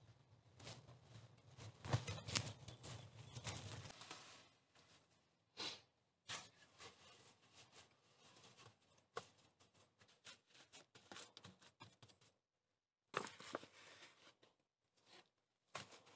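Faint rustling and scraping of a sack being filled with dug clay. After a cut, this gives way to soft, irregular pats and rubbing as a gloved hand packs and smooths wet clay around a sheet-metal stove.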